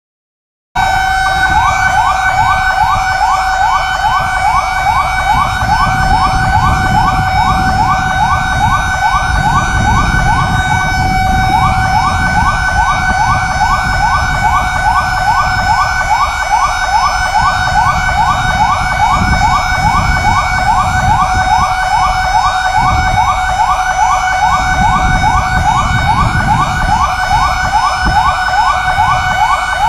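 Fire brigade siren sounding a fast yelp: a rising wail repeated several times a second over a steady tone, with a low rumbling noise beneath. It starts abruptly just under a second in and keeps going.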